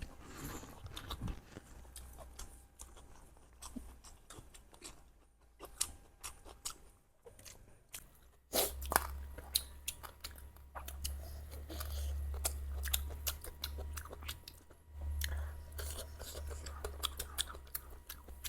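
Close-miked chewing and biting of spicy duck curry: many short, crunchy clicks and mouth sounds.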